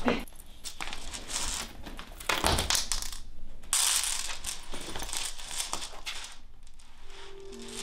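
A handbag being emptied and rummaged through on a floor: rustling and light clattering of small items and the bag's chain strap, in several short bursts.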